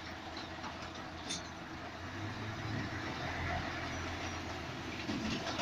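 Vehicle engine running at low speed as it creeps along an enclosed rail-shuttle wagon, heard from inside the cab as a steady low hum with a faint click about a second in.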